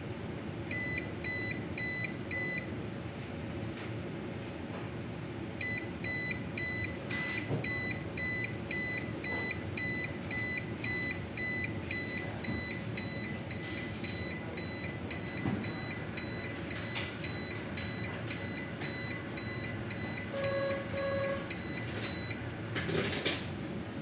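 24 V UPS low-battery alarm beeping about twice a second, set off by the supply voltage dropping to around 22 V. It sounds briefly near the start, pauses, then beeps steadily and stops a couple of seconds before the end as the voltage is raised back toward 22.5 V. A steady electrical hum runs underneath, with two lower beeps near the end.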